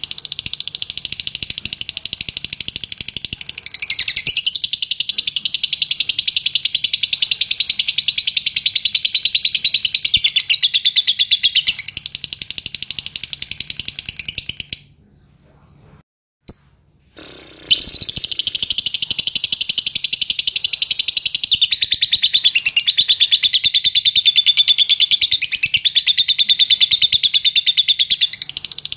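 Fischer's lovebird singing a long, rapid, continuous chattering song. It breaks off for about three seconds near the middle, then resumes.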